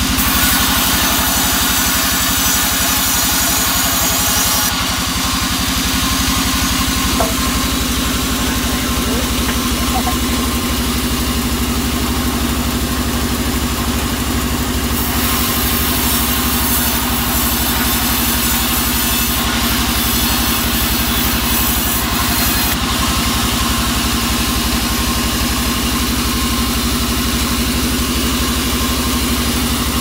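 Sawmill band saw running steadily on its drive engine, with a low, even pulse and hum under the hiss of the blade ripping albasia (sengon) wood. The high hiss of the cut grows and fades a few times as the wood is fed through.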